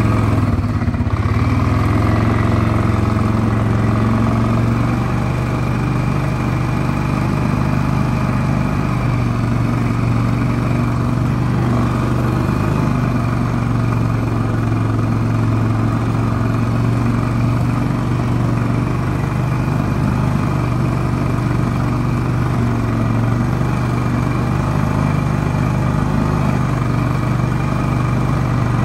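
Off-road vehicle's engine running steadily at a constant low speed as it drives along a forest trail, with no revving.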